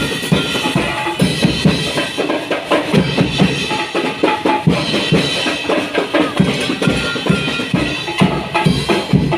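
Drums playing a busy, driving beat of bass and snare strokes, with other music over it.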